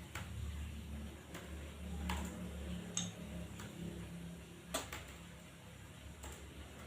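Computer keyboard keys pressed one at a time: about six separate sharp clicks, irregularly spaced, over a steady low hum.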